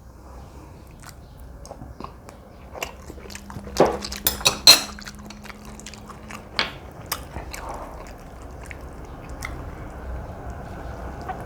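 Close-miked eating sounds of someone chewing jjajangmyeon noodles: wet mouth clicks and smacks, scattered throughout, with a cluster of louder ones about four seconds in.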